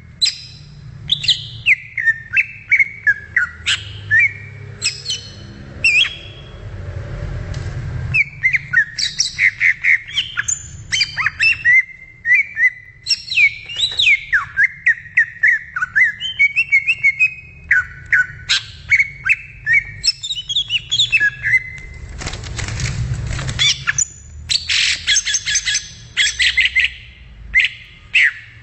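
Greater green leafbird (cucak ijo) singing: a rapid, varied run of sliding whistled notes and chattering phrases. Twice a brief patch of hiss sounds under the song, and a low rumble runs beneath it.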